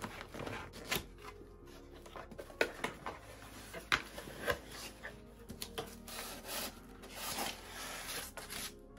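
A cardboard shipping box being opened by hand: a blade scrapes along the packing tape, the cardboard rubs and knocks as the flaps are opened, and near the end a foam insert rubs against the box as it is lifted out.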